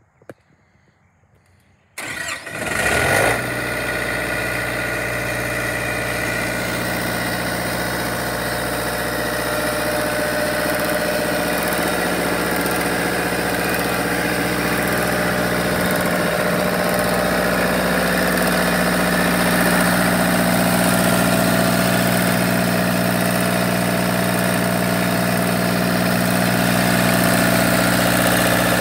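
Diesel generator set starting about two seconds in: a brief crank and catch, then the engine settles into a steady, even run.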